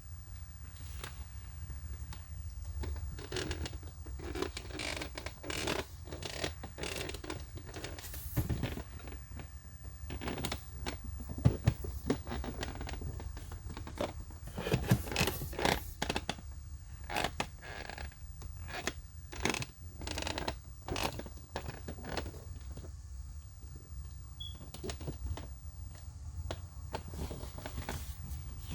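A figure's box packaging being handled and opened by hand: irregular scrapes, scratches, rustles and small clicks, over a low steady hum.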